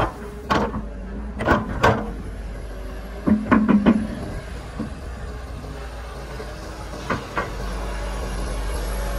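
Kobelko SK200 hydraulic excavator's diesel engine running steadily, broken by sharp clanks and knocks from the bucket and boom as the bucket dumps mud and swings away, with a quick cluster of knocks about three and a half seconds in. The engine grows louder about seven and a half seconds in as the arm goes down to dig.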